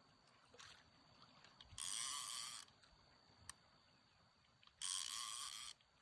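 A fishing reel gives two short bursts of buzzing drag, each about a second long, around 2 seconds in and again around 5 seconds in, as line is pulled off by a fish that is still fighting. There is a single sharp click in between.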